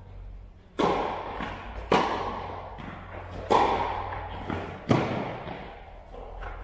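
Tennis rally: four sharp racket-on-ball hits about a second and a half apart, with fainter ball bounces between them. Each hit rings out in the long echo of a large metal-walled indoor court.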